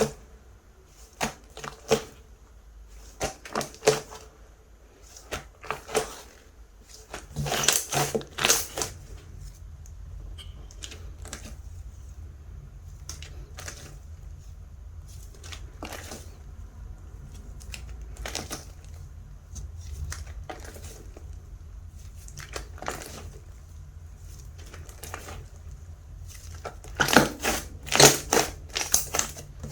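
Clay-mixed slime being squeezed and pressed by hand, giving sharp crackling pops and clicks; they come in dense runs about eight seconds in and again near the end.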